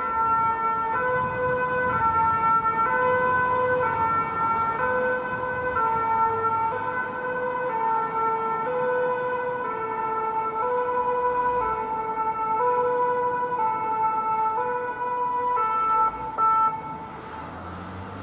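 Two-tone 'pin-pon' siren of a French fire brigade vehicle, stepping between its two notes about once a second. It stops shortly before the end.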